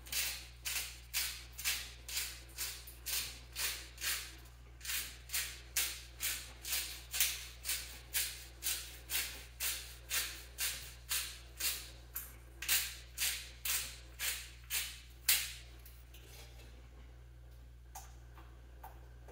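Hand pepper grinder being twisted, a rhythmic scratchy crunching of about two turns a second as peppercorns are freshly ground, stopping about fifteen seconds in.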